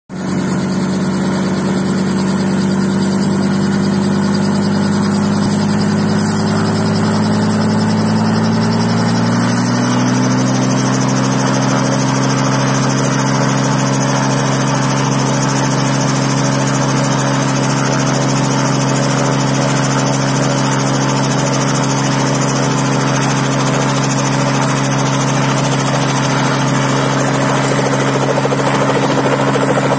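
Helicopter running with a steady hum whose pitch rises gradually over the first ten seconds or so, then holds level.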